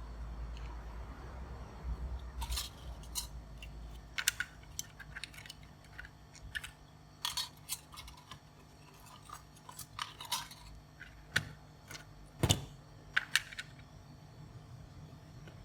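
Scattered light clicks and taps of small tools being handled at an electronics repair bench, with one louder, sharper knock near the end.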